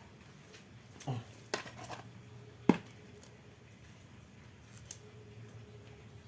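A few clicks and knocks of small parts being handled while an electric fan motor is fitted, the loudest a single sharp knock a little under three seconds in, over a faint low steady hum.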